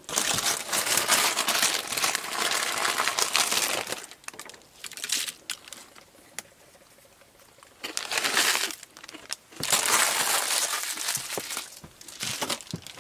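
A bag of tortilla chips crinkling and crackling as chips are crushed and tipped into a pot of chili, in several bursts, the longest over the first four seconds.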